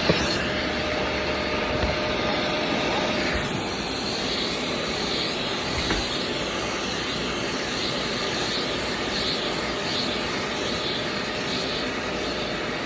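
Pet-grooming vacuum running with its clipper attachment, a steady whooshing suction drone as it pulls cut hair away.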